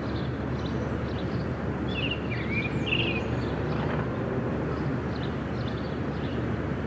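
Rural outdoor ambience: a steady low rumble, with small birds chirping a few short times, mostly around two to three seconds in.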